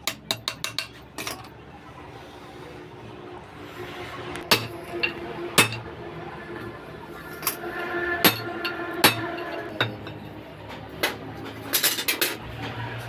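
Hammer blows on metal while a propeller-shaft universal-joint cross is being changed: a quick run of light taps at the start, then single harder strikes about a second apart with some metallic ringing, and a fast cluster of blows near the end.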